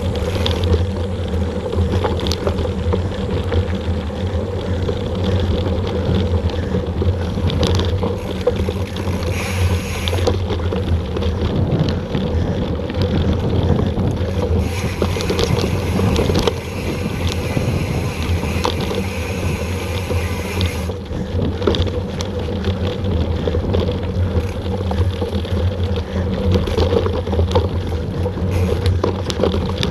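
Mountain bike riding down a dirt trail, heard on the bike-mounted action camera's microphone: steady wind buffeting and tyre rumble, with rattles and knocks as the bike goes over bumps. A stretch of brighter hiss runs for several seconds midway.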